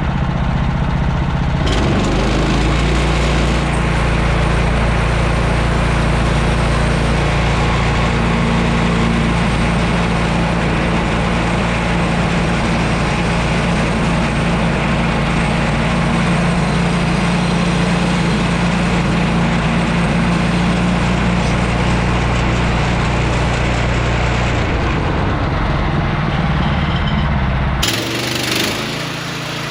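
Woodland Mills bandsaw mill's gas engine running steadily under load while the band blade saws through a red cedar log. Near the end the sound changes and drops a little.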